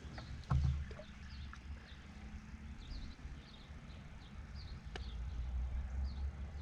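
A steady low rumble of wind and handling on a boat, with one dull thump about half a second in and a sharp click near the end. Faint, short, high bird chirps repeat through it.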